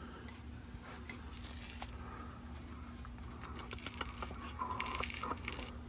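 Toyota 86 flat-four engine idling steadily, its exhaust leaking at the aftermarket headers where a flange bolt is missing, with scattered clicks and scrapes of hands working around the exhaust.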